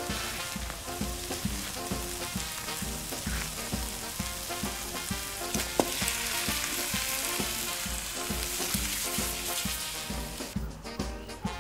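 Onions frying in a pan over a wood fire, a steady sizzle that grows louder about six seconds in when red beans are tipped into the hot pan. Background music with a steady beat plays throughout.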